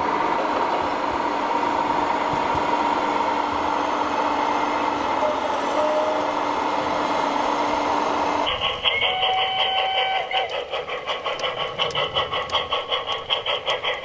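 Radio-controlled model truck running steadily. After about eight and a half seconds it changes abruptly to the rhythmic chuffing of a model steam locomotive, about four beats a second.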